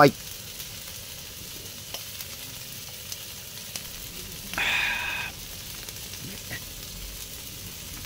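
Meat sizzling on a grill plate over a cassette gas stove: a steady frying hiss with faint crackles. About halfway through, a louder sound just under a second long rises above it.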